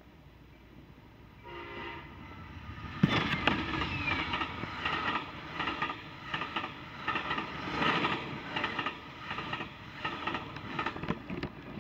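Amtrak passenger train with Superliner bilevel cars passing close at speed. A short horn sounds about a second and a half in. About three seconds in the train reaches the platform, and from then on its wheels clatter rhythmically over the rail joints as the cars go by.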